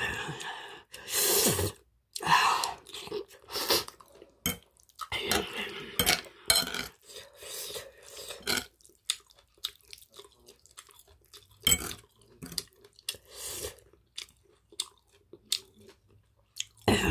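Close-up chewing of a mouthful of spicy webfoot octopus bibimbap with rice and bean sprouts, in irregular wet, crunchy bursts, with a quieter stretch about halfway through.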